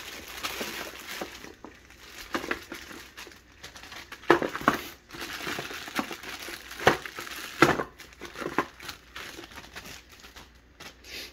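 Plastic packaging bag crinkling irregularly as it is handled in a hard plastic pistol case, with a few louder rustles about four and seven seconds in.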